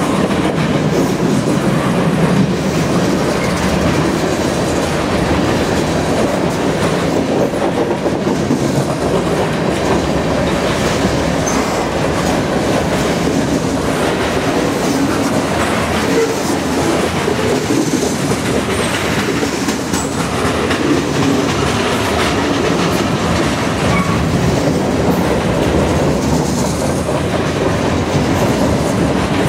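A long freight train's cars rolling past at speed: empty centerbeam flatcars, covered hoppers and gondolas make a steady rumble of steel wheels on rail, with wheels clicking over the rail joints.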